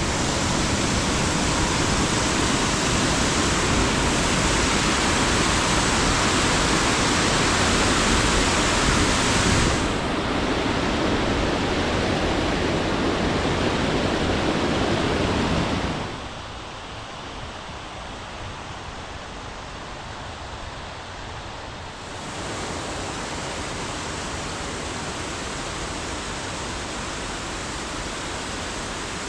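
Steady rush of water from a woodland stream falling over a small cascade. It is loud at first, drops suddenly about halfway through, then comes back somewhat louder a few seconds later.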